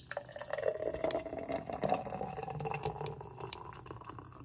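Thick pink berry and pineapple juice poured in a steady stream into a tall glass jar, with small splashes and bubbles. The pitch of the filling sound rises as the jar fills.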